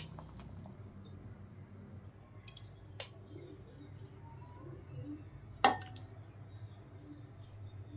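Quiet kitchen room tone with a steady low hum and a few sharp clicks or taps, the loudest about five and a half seconds in.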